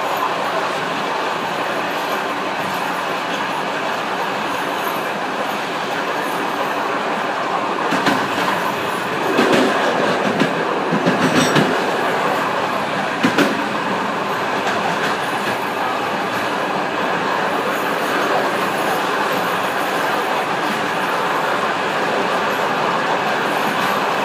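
Steady rolling rumble and hiss of a passenger train heard from inside its rear end. From about eight to thirteen seconds in, a run of knocks and wheel clatter as the train crosses points where another track joins.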